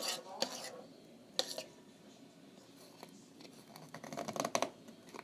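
A spoon stirring and scraping thickening slime in a bowl: a few single scrapes, then a quick run of strokes near the end.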